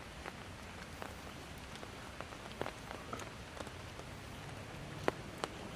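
Steady rain with scattered sharp taps of drops striking an umbrella held close to the microphone.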